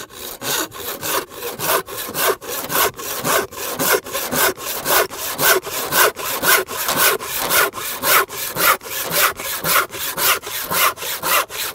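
Sharp, hand-filed handsaw crosscutting a softwood board in steady, even back-and-forth strokes, about two to three a second.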